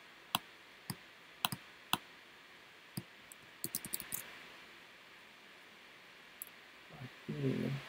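Scattered sharp clicks of a computer keyboard and mouse, about a dozen in all: a few single clicks in the first two seconds, a quick cluster around four seconds in, and one more later. A brief murmur of a voice comes near the end.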